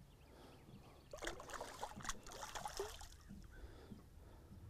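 Faint splashing and trickling of water, strongest for about two seconds starting a second in.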